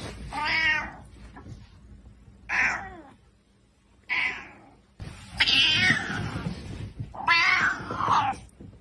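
Angry domestic cat yowling five times in drawn-out, wavering calls, the last two longest, as a hand reaches to touch it.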